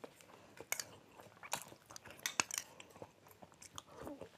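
Two people eating with spoons, sipping sambar from bowls: soft sips, chewing and mouth smacks, punctuated by a dozen or so short sharp clicks.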